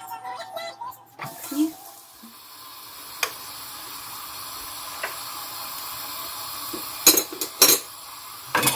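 Large pot of borscht simmering on the stove: a steady bubbling hiss. Several loud clatters of a plate and utensils against the pot near the end.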